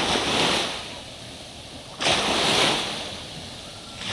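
Strong waves breaking on a sea beach, a new wave rushing in with a sudden surge of surf about every two seconds and then washing out.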